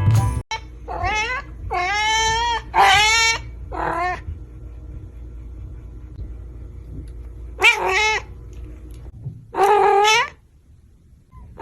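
A domestic cat meowing repeatedly: four drawn-out meows in quick succession, then two more after a pause of a few seconds.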